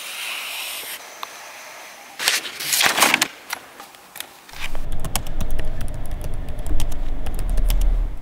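A pen scratching across a paper page in a few strokes, then quick irregular clicking of laptop keys and a computer mouse over a low steady hum that starts about halfway through.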